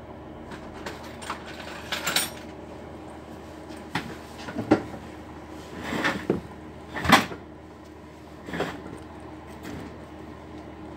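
Irregular clicks and knocks of laptop hinge and plastic case parts being handled and pressed into place during a hinge repair, with the loudest knock about seven seconds in, over a steady low hum.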